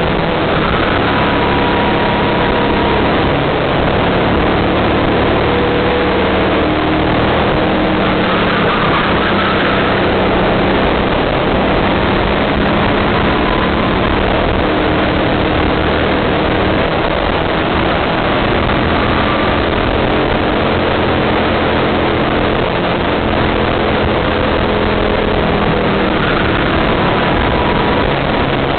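Go-kart engine running under throttle, heard from on board the kart with a loud, steady rushing noise over it; its pitch rises and falls as the kart speeds up and slows through the corners.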